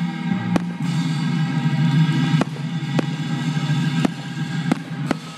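Music playing while aerial fireworks shells burst, with about six sharp bangs over the music.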